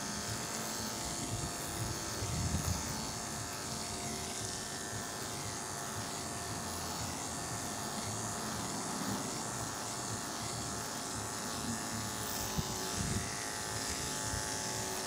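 Andis AGC two-speed dog clipper, fitted with a 3 3/4 FC blade, running steadily as it is worked through a dog's coat: an even electric buzz with a high hiss above it.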